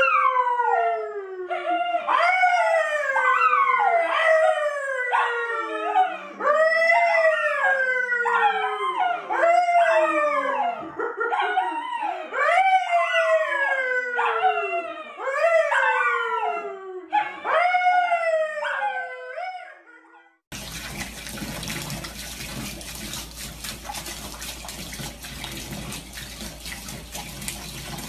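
A small curly brown dog and a man howling together, a long string of high howls that each slide down in pitch. About twenty seconds in it cuts suddenly to tap water running steadily into a bathtub.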